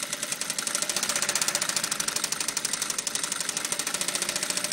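Industrial direct-drive sewing machine adapted for free-motion quilting, running steadily at its turned-down speed, its needle stitching in a rapid, even rhythm of strokes.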